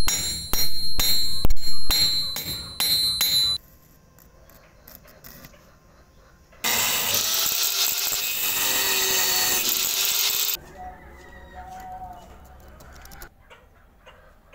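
Seven or eight ringing hammer blows on a rusty steel bracket held on an anvil. After a pause, an angle grinder with a cutting disc runs for about four seconds, cutting into a steel plate.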